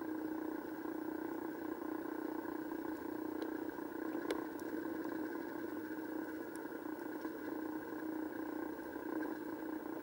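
Steady mechanical hum heard underwater, even in pitch throughout, with a few faint sharp clicks, the clearest about four seconds in.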